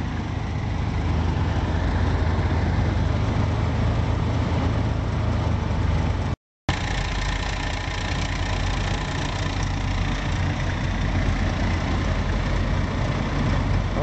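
Hadley Puffy 12-volt electric air horn compressor running steadily, pumping up its air tank as the pressure climbs toward 20 psi. It makes an even low hum that cuts out for a split second about halfway through.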